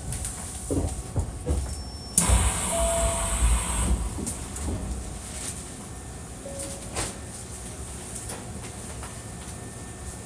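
Interior of a Hankyu 1300 series electric train stopped at a station: a few knocks and clicks, then about two seconds in a loud burst of compressed-air hiss lasting about two seconds, followed by a quieter steady background.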